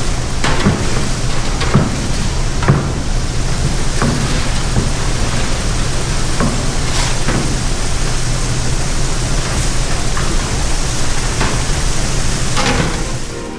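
Grain-handling machinery running with a steady low hum under a loud, even hiss, with scattered sharp knocks and clanks.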